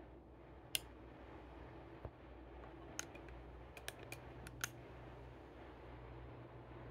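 A few short, sharp clicks scattered over several seconds, the first and loudest about a second in and a quick cluster near the middle, over a faint steady room hum.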